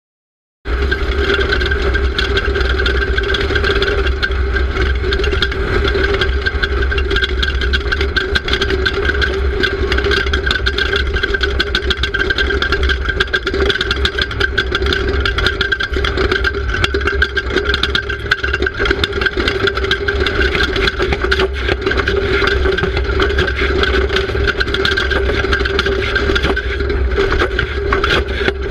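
Off-road race car engine running steadily at speed, picked up by an onboard camera, with frequent rattles and knocks on top. The sound cuts in abruptly just under a second in.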